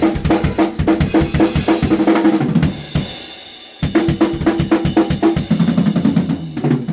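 Drum kit played fast, with rapid bass drum and snare hits and cymbals over them. It stops and dies away for about a second partway through, then starts again.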